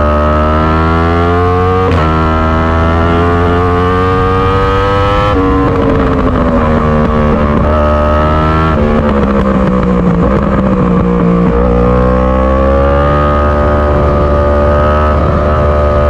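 2018 Yamaha R1's crossplane inline-four through an Akrapovic Evolution exhaust, pulling in gear with a short shift dip about two seconds in and the revs climbing. About five seconds in the throttle rolls off and the note falls away with a rougher, stuttering sound and a step up in revs partway through, like a downshift, before the engine pulls and climbs again for the last few seconds.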